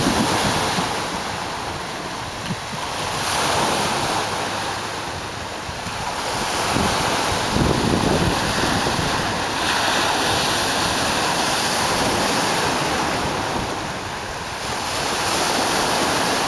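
Choppy lake waves breaking and washing over a shore of broken concrete slabs and rocks, the surf swelling and easing every few seconds. Wind buffets the microphone.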